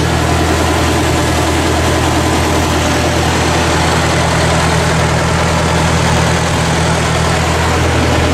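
1954 Ford NAA tractor's four-cylinder gas engine idling steadily.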